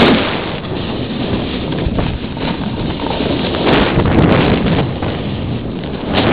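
Wind buffeting the camera's microphone while skiing downhill, mixed with skis sliding over snow: a rushing noise that swells and fades.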